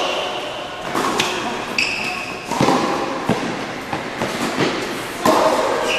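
Tennis rally on an indoor hard court: balls struck by rackets and bouncing, several sharp hits about a second apart, echoing in the hall, with a few short high squeaks.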